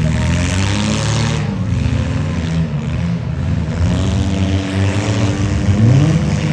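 Several compact demolition derby cars' engines running together, revving up and down, with one engine climbing in pitch near the end.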